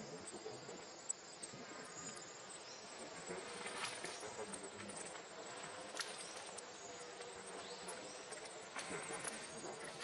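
Insects buzzing steadily, with a few faint clicks.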